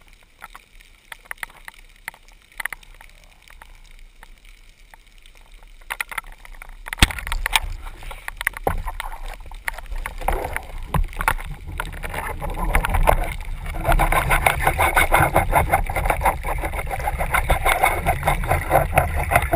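Underwater sound picked up by the diver's camera. Faint scattered clicks, then a sharp crack about seven seconds in as the speargun fires. After that comes a growing churning, crackling water noise while the speared dentex fights on the line, loudest near the end.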